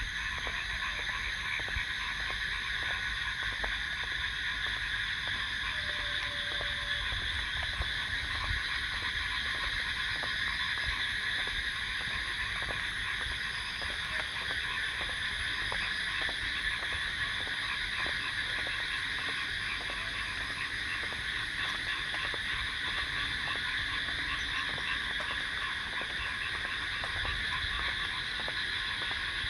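Night chorus of crickets, a steady dense trilling in several pitch bands, over a low rumble.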